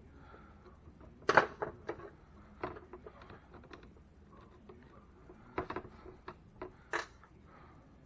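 Irregular clicks, taps and clatters of small parts and tools being handled while taking apart a Traxxas T-Maxx RC truck. The loudest knock comes about a second in, and a few more come in a cluster past the middle.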